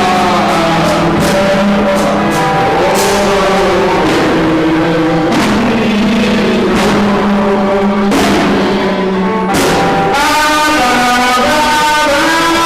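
Music: long sustained chords with a melody line over them, and percussion hits roughly every one to two seconds.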